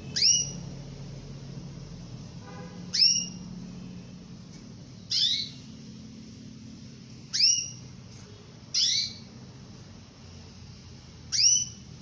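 Female domestic canary calling to a male: six short single calls, each a sharp quickly falling note, spaced about two to three seconds apart.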